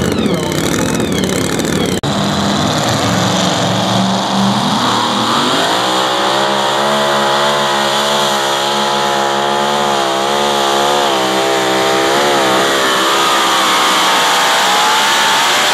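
Supercharged pulling-vehicle engine at full throttle, dragging a weight sled down the track. After an abrupt cut about two seconds in, the revs climb for a few seconds, then hold high with the pitch wavering up and down.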